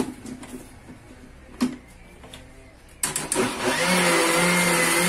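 A single knock about a second and a half in, then an electric blender switched on about three seconds in. Its motor spins up to a steady whine and runs for about three seconds, blending eggs, sugar, oil and milk into cake batter.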